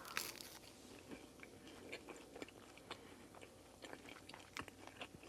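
Faint chewing of a chicken nugget, with irregular small mouth clicks and smacks.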